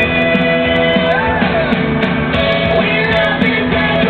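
Loud song with a singing voice over backing instruments, playing without a break.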